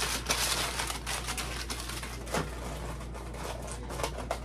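Aluminum foil being crumpled and crinkled by hand into shape, a dense run of crackles that grows softer after the first second or two, with a few sharper crackles later on.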